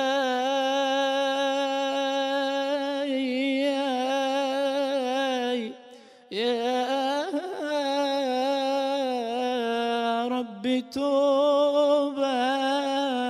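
A young man singing an unaccompanied ibtihal, an Islamic devotional supplication, solo into a microphone. He holds long melismatic notes with wavering, ornamented pitch in three long phrases, pausing for breath about six seconds in and again briefly near ten and a half seconds.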